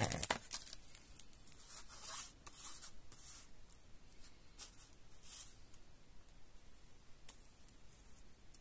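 A strip of adhesive tape torn off its sheet with a sharp tearing rustle at the start, followed by lighter rustles and scrapes of card stock being handled over the next few seconds.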